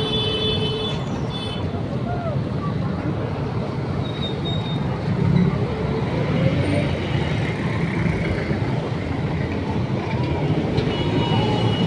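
Steady street traffic noise from passing vehicles' engines and tyres at a busy intersection. A brief high squeal is heard at the start and again near the end.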